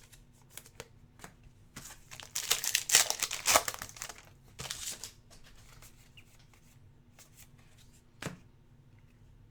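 Wrapper of a 2019-20 Hoops basketball card pack being torn open and crinkled, a dense crackle lasting about two seconds in the middle, followed by quieter clicks and taps of the cards being handled.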